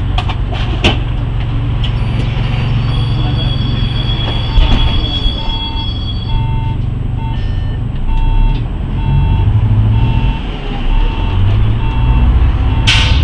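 City bus diesel engine running at a stop, with a run of short electronic warning beeps, about two a second, from about a third of the way in. This is typical of a bus's door-closing signal. A short hiss of air comes just before the end, as the engine note changes and the bus moves off.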